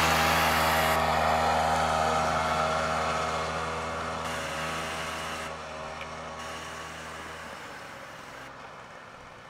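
Snowmobile engine running at a steady speed as the sled drives away, its sound fading steadily; the low engine hum drops out about three-quarters of the way through.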